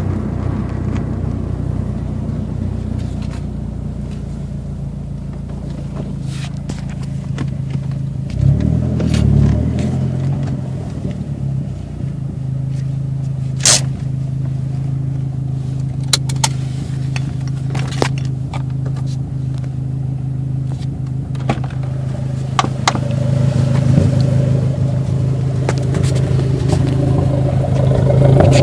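Dodge SRT-4's turbocharged 2.4-litre four-cylinder engine running steadily, with one brief rev about eight seconds in and a few sharp clicks later on; the engine grows louder near the end.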